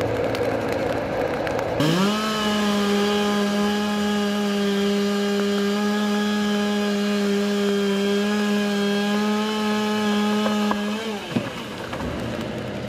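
Chainsaw cutting up a storm-felled tree: it revs up about two seconds in, runs at one steady high pitch for about nine seconds, then winds down. A steady hiss of rain lies under it.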